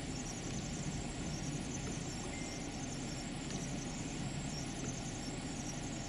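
Freezing rain falling steadily, an even hiss with a constant low noise beneath it.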